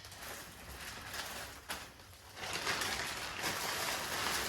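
Plastic packaging rustling and crinkling as items are handled and unwrapped, louder from about halfway through.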